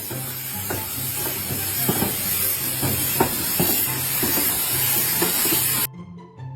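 Loud steady hissing noise with scattered clicks and knocks, over light background music; the hiss cuts off suddenly about six seconds in.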